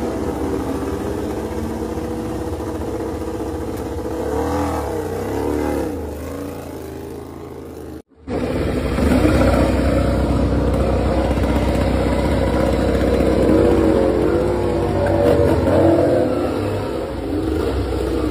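MotoGP race bikes' V4 engines running in the pit lane, the throttle blipped so the revs rise and fall. It breaks off briefly about eight seconds in, then a second bike runs louder.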